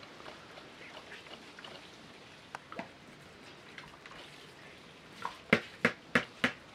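Water poured from a clay jug splashing and dripping through a plastic colander onto washed vegetables, with small scattered clicks. Near the end comes a quick run of about five loud, sharp knocks, roughly three a second.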